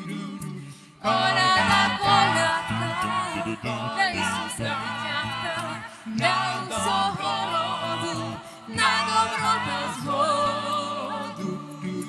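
Mixed vocal ensemble of women's and men's voices singing a Ukrainian Christmas carol (koliada) a cappella in close harmony over a low bass line. The voices come in about a second in, with brief breaks between phrases near six and nine seconds.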